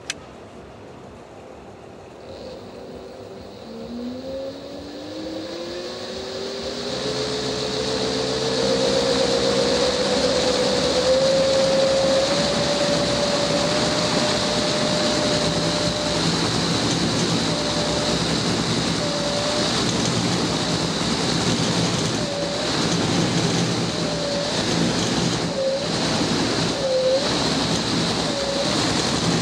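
A 250 W electric-scooter hub motor spinning up long plastic test rotor blades: after a click at the start, a whine rises steadily in pitch over about eight seconds and then holds, under a growing rush of air from the blades. Later on the whine dips briefly several times.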